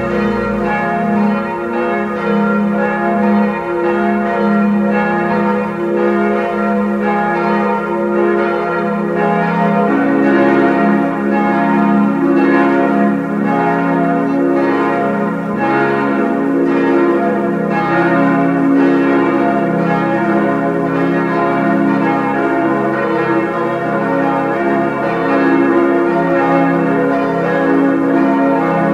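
Full peal of six bronze church bells cast by Schilling in 1958, tuned A♭–B♭–D♭–F–A♭–B♭, all ringing together in a continuous overlapping chime. The sound grows deeper and fuller about ten seconds in.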